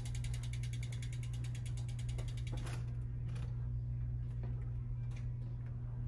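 Road bike's rear freewheel hub ticking fast and evenly as the bike is wheeled along, stopping about three seconds in, followed by a few single clicks. A steady low hum runs underneath.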